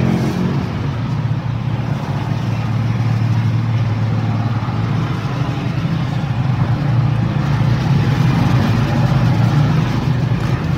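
A steady low mechanical drone, unchanging throughout, with no knocks or clicks standing out.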